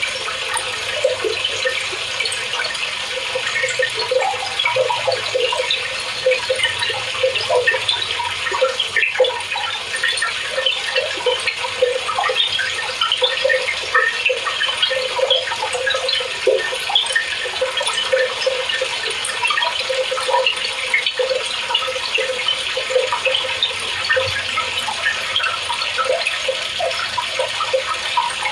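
Speed Queen TC5 top-load washer filling: water pouring and splashing into the tub, a steady rush full of bubbling splashes.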